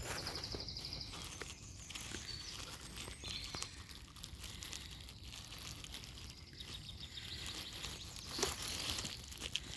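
Faint outdoor birdsong, with a short rapid high trill in the first second and a few brief chirps after it, over a steady low background rumble. Near the end come a few rustles and clicks of vegetation being moved.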